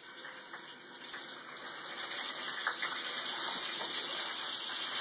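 Raw beef sizzling as it is laid into a hot cast iron skillet on a gas burner, searing. The sizzle grows louder about a second and a half in as more meat goes into the pan.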